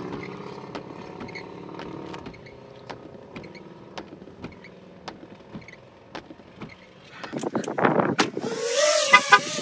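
An FPV drone's motors and propellers spin up loudly about seven seconds in as it takes off: a whine that rises in pitch over a rush of air. Before that, a steady low hum with scattered light clicks.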